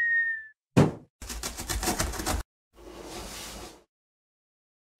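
Animated intro sound effects: a high tone fading out at the start, a sharp thump just under a second in, a fast rattle lasting about a second, then a softer whoosh, followed by silence.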